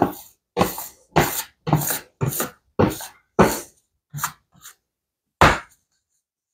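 Bread dough being kneaded by hand against a countertop: about ten short slaps and presses, roughly two a second, with a longer pause before the last one.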